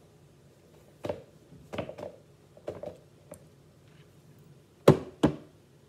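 A Nike Mike Trout baseball cleat handled close to the microphone: a few soft knocks and rubs, then two sharp knocks about a third of a second apart near the end.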